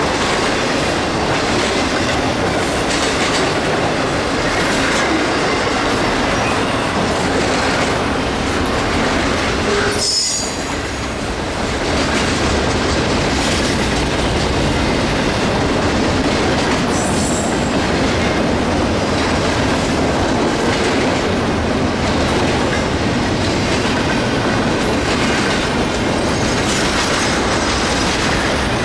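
Freight train cars rolling past at steady speed, with a continuous rumble and clatter of steel wheels over the rail joints. A brief high wheel squeal comes about ten seconds in and another around seventeen seconds.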